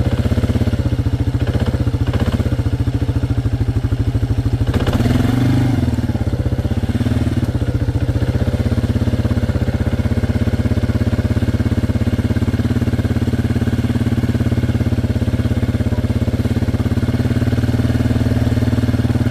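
Small vehicle engine running steadily at low speed while moving along a dirt trail, with a bump and a brief change in the engine note about five seconds in.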